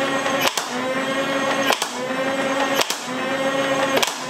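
Electric flywheel motors of a Stryfe-style foam-dart blaster spinning with a steady whine while it fires four single shots, a sharp click about every second. The motor pitch dips at each shot and climbs back as the flywheels recover speed.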